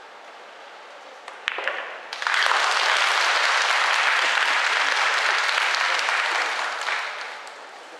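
A few sharp clicks of cue and pool balls about a second and a half in, then audience applause for about five seconds that fades away near the end, greeting the 9-ball being potted to win the rack.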